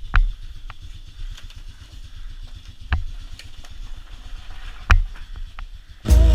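A small engine running at idle with a low, rapid, even pulse, and three sharp knocks over it.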